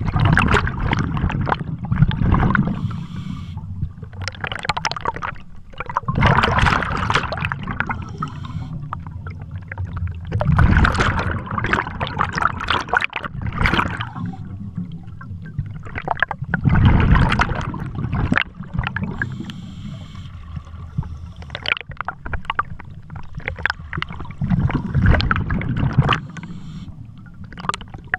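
Scuba regulator heard underwater: bursts of exhaled bubbles gurgling out about every five seconds, with quieter stretches of breathing between.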